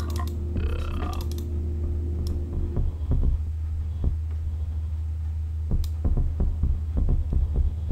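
A steady low hum underlies the recording. A pitched sound dies away in the first second, and irregular soft low thumps follow from about three seconds in.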